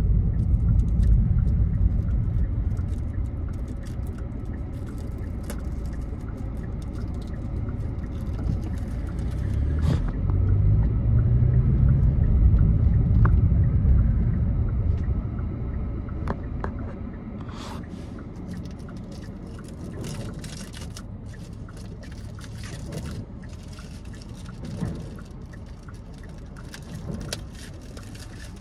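Low road and engine rumble heard from inside a moving car; it swells about ten seconds in and eases off after about fifteen seconds. In the quieter second half come scattered small clicks and crinkles from a plastic Blu-ray case being handled.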